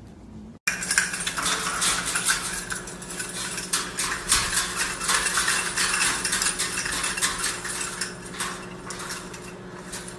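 Red plastic cups and small toy pieces on a hanging cage toy clattering as a caique parrot bashes and tumbles among them: a rapid, irregular run of plastic clicks and knocks, starting about half a second in, over a steady low hum.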